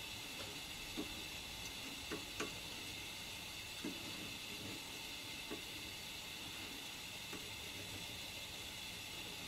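Steady hiss of a gas stove burner flame heating a steel plate, with a few faint clicks of steel burnishing tools on a hot silver disc as gold foil is burnished onto it during keum boo.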